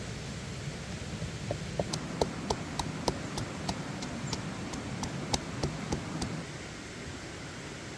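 A quick, irregular run of sharp clicks and taps, about two or three a second, stopping a little over halfway through, over a steady rushing noise.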